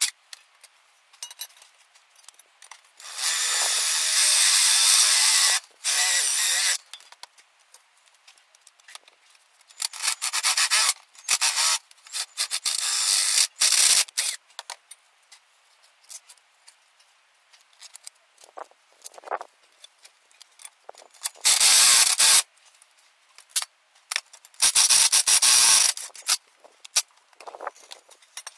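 Irregular bursts of rubbing, scraping noise from hand metalwork on steel pipes, each burst lasting up to about two and a half seconds, with quiet gaps between.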